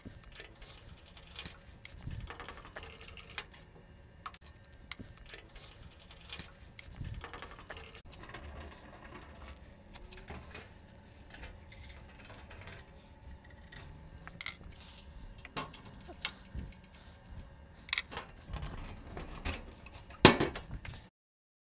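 Small metallic clicks and clinks of hand tools and screws against a machine's metal side panel as its screws are taken out, scattered and irregular, with a louder clunk near the end.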